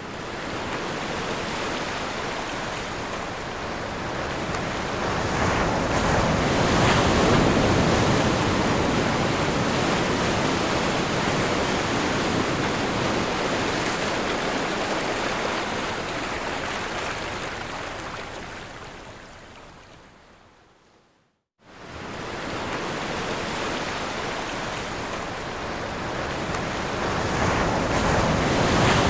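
Ocean waves breaking on a shore: a continuous rush of surf that builds over the first several seconds, then fades away to silence about 21 seconds in and starts again abruptly a moment later.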